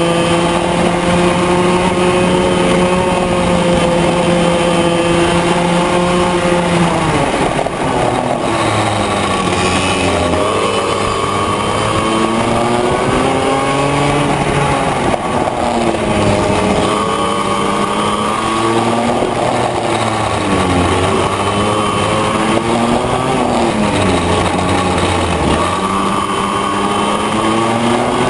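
Yamaha KT100J 100cc two-stroke single-cylinder kart engine running loud at full throttle, its pitch held high and steady for about seven seconds, then repeatedly dropping and climbing again as the revs fall through the corners and rise on the way out.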